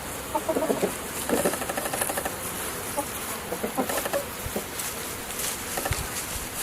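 Short, scattered animal calls and chirps over a steady outdoor background, with a quick rattling run of pulses about a second in.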